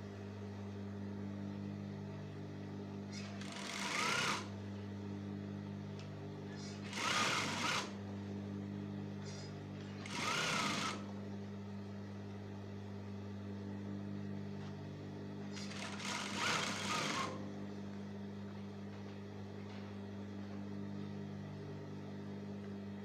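Sewing machine with a steady motor hum, stitching in four short runs of about a second each while the trousers are sewn closed.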